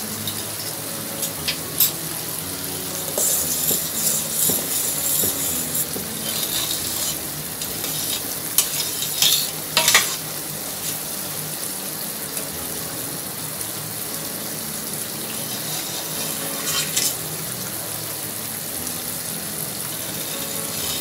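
Sugar syrup boiling in a metal pot with a steady bubbling hiss, stirred with a spoon that clicks and scrapes against the pot now and then. Lemon juice has just been stirred in to bring the scum to the surface.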